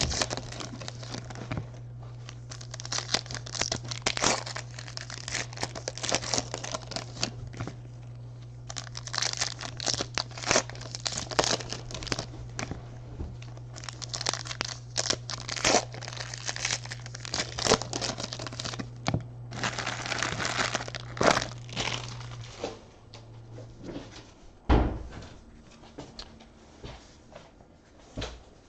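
2019 Panini Donruss Baseball card pack wrappers crinkling and tearing as packs are ripped open and cards handled, in rapid irregular crackles, over a steady low hum that stops about three-quarters of the way through. Near the end the crackling eases and there is a single thump.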